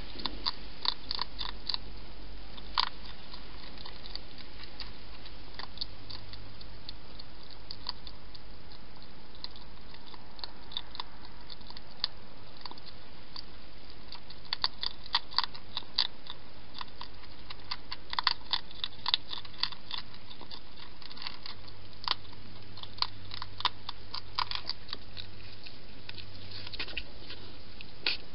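Wild hedgehog chewing food at a feeding bowl: runs of sharp crunchy clicks lasting a second or two, with pauses and single clicks between.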